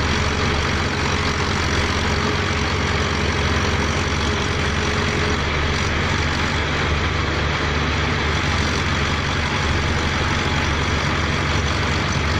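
Heavy engine running steadily at a constant speed, the power unit of a pneumatic drilling rig, with no separate hammering strokes.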